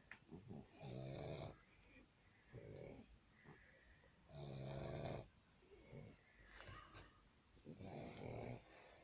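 A sleeping pet snoring: three slow snores, each about a second long, roughly three and a half seconds apart.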